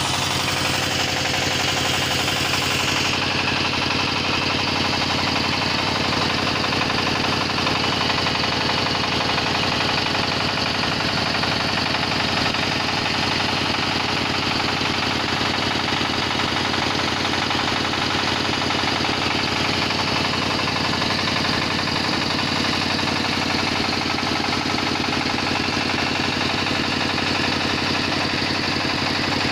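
Inda 28 hp single-cylinder diesel engine running steadily on test, its firing strokes an even, regular knock, belt-driving an ADK 22.5 kVA generator.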